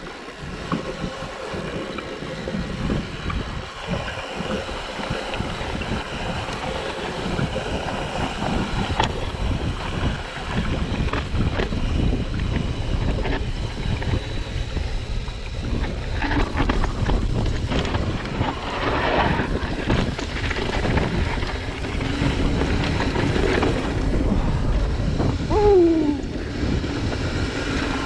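Wind buffeting a chest-mounted GoPro while a mountain bike rolls over rock and dirt trail, with tyre crunch and the rattle and knock of the bike over bumps. Near the end there is a brief falling squeak.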